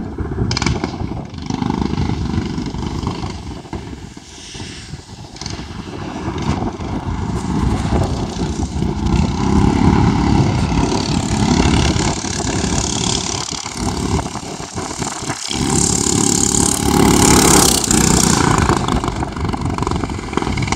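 Mini bike chopper's 13 hp engine running as it is ridden along the road, rising and falling in level and loudest about three-quarters of the way through.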